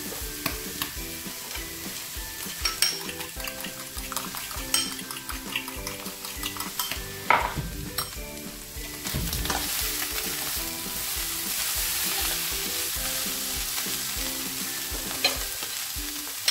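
Fork beating eggs in a ceramic bowl, clicking repeatedly against the side. Underneath, potatoes and tuna sizzle in oil in a frying pan, and the sizzle grows louder about nine seconds in.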